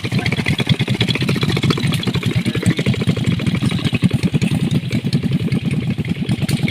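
Motorcycle engine running at a steady low speed, a rapid, even chugging of firing pulses.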